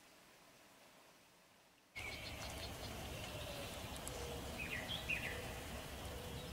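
Near silence, then about two seconds in an outdoor ambience cuts in: a steady rushing noise with a low rumble, and a small bird chirping a few times, with short falling notes near the middle.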